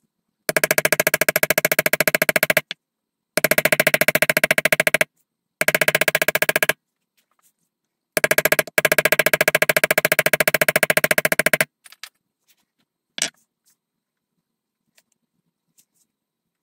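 Wooden mallet tapping a metal leather-tooling stamp into vegetable-tanned leather in very rapid runs of taps: four runs, the last and longest lasting about three and a half seconds. A few single light clicks follow near the end.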